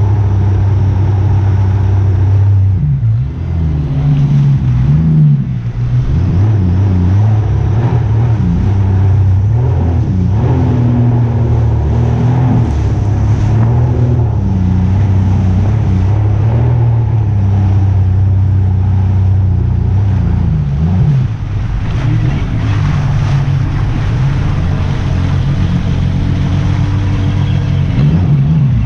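A motor vehicle engine running steadily, its pitch wavering up and down several times as the revs change.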